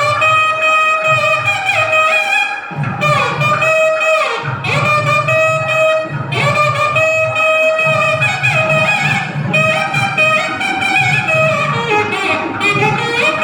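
Instrumental music led by a reed wind instrument playing a melody of long held notes, over a pulsing low rhythm.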